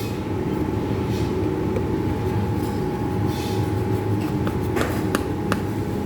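A steady low mechanical hum with a thin whine held over it, and a few light clicks and knocks in the second half.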